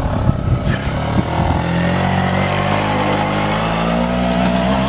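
Scooter engine labouring as the rider pushes it through soft sand. It is choppy and uneven for the first second and a half, then settles into a steady drone whose pitch slowly rises.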